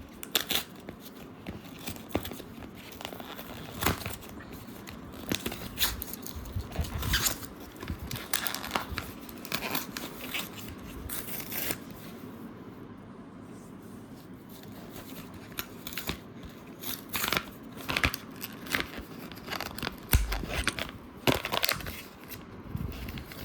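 Packaging being opened by hand: tearing and crinkling with scattered sharp clicks and taps, quieter for a few seconds a little after the middle.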